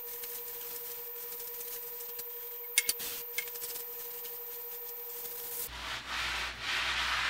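A cloth scrubbed back and forth over the steel top of a surface grinder's magnetic chuck, a rough hiss in the last second or two. Before that, a steady faint tone hums, with a few sharp clicks near the middle.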